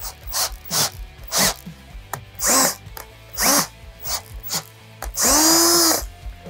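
Cordless drill driving a 1/8-inch pipe tap into a hole in a steel axle tube, cutting threads in short trigger bursts, the motor whining up and down with each. Near the end comes one longer run of about a second, the loudest.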